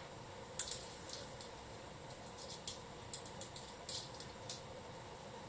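Stethoscope being wiped down with an alcohol swab: about a dozen short, light, scratchy rubs and crinkles at irregular intervals, over a faint steady hiss.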